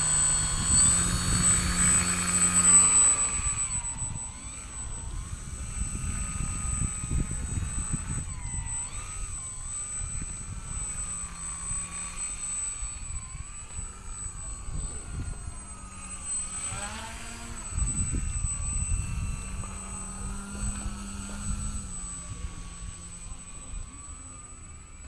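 Electric motor and propeller of a small EPP foam 3D aerobatic RC plane, its whine rising and falling in pitch as the throttle changes. It is loudest in the first three seconds, then fainter as the plane flies farther off, over wind rumble on the microphone.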